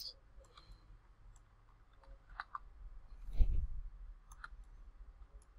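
Scattered computer mouse clicks, a few at a time, with a single soft low thump about three and a half seconds in.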